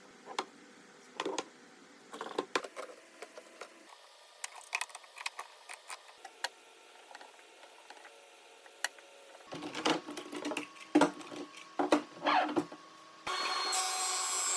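Scattered knocks and clicks of wood and tools being handled, then a power tool starts up suddenly near the end and runs steadily with a high whine.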